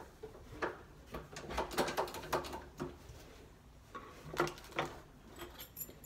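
Irregular clicks and knocks of hand work on a rim night latch fitted to a wooden front door, as its fixing screws are replaced and the lock is handled.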